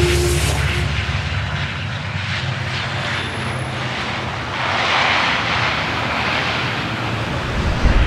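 Airliner engine sound effect: a steady low rumble and hiss that swells as the plane passes about five seconds in, ending in a short low boom near the end.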